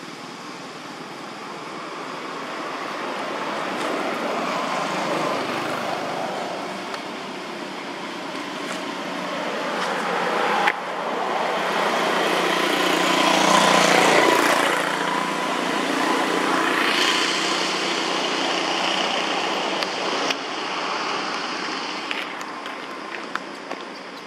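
A road vehicle passing, its noise swelling to a peak about halfway through and fading again, with one sharp click a little before the peak.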